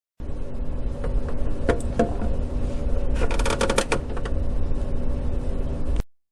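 A refrigerator shelf being handled and fitted into place: a few sharp clicks, then a short run of clicking and rattling about three seconds in, over a steady low hum.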